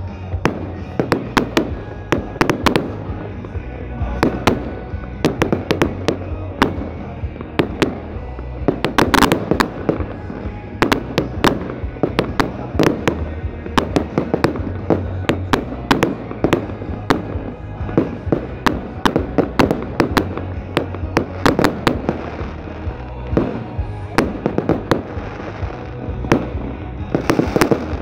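Fireworks display: aerial shells bursting in a rapid, irregular run of bangs and crackling, with music playing underneath.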